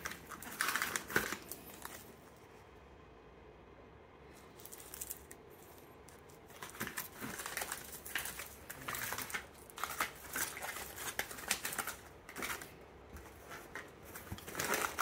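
Crinkling and rustling of vacuum-sealed plastic steak packages handled and shifted in a cardboard box, in irregular short bursts. A quiet stretch of a few seconds comes after the first second, then the handling noise starts again.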